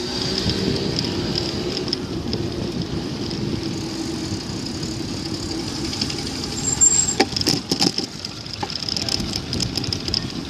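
Riding noise from a pedal bicycle on the road: steady wind and tyre rumble under a thin high hiss. A motor vehicle that has just passed fades away over the first few seconds, and a short burst of rattling clicks comes about seven seconds in.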